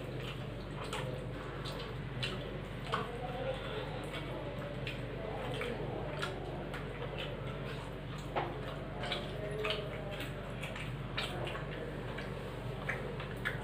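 Eating by hand from stainless steel plates: fingers mixing rice and curry, chewing and mouth smacks, heard as small irregular clicks and wet squishes over a steady low hum.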